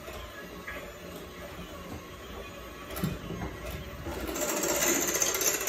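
Electric hand mixer beating cream cheese and powdered sugar in a glass bowl, the beaters clinking against the glass. It grows louder and higher from about four seconds in.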